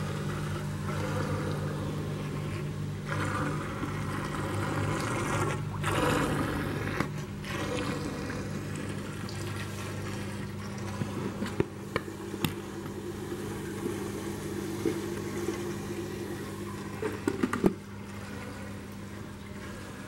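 Recirculating protein skimmer running: a steady pump hum under rushing, splashing water, with a few sharp clicks in the second half.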